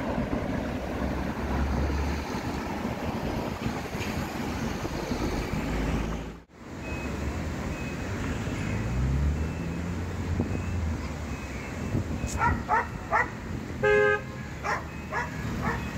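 City street traffic: car engines running past, with one engine note rising about halfway through. Near the end come several short car horn toots, the loudest a held honk about two seconds before the end.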